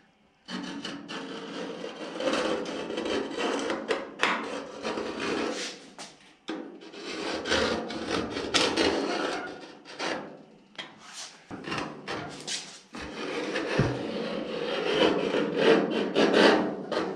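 Steel scribe scratching a line into the layout fluid on the coupe's sheet-steel body, drawn along the edge of a clamped steel strip used as a guide. It is a rasping scrape in long strokes, with brief pauses between them.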